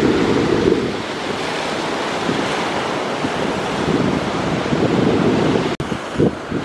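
Sea surf breaking and washing up the beach, mixed with heavy wind buffeting on the microphone. The sound drops out for an instant near the end.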